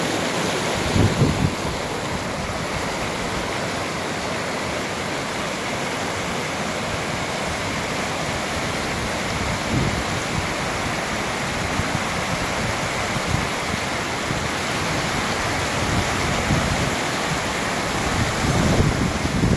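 Shallow mountain stream rushing over rocks and small cascades: a steady rush of water. Gusts of wind buffet the microphone about a second in and again near the end.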